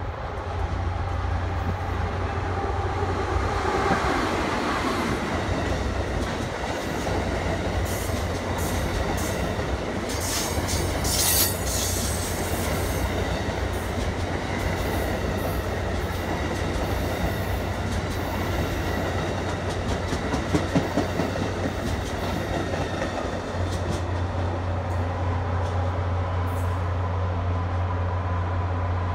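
Amtrak train hauled by a Siemens ACS-64 electric locomotive, with Amfleet coaches, running past the platform, a steady rumble and clatter of wheels on rails. Brief high-pitched wheel squeals and clicks come about ten to twelve seconds in.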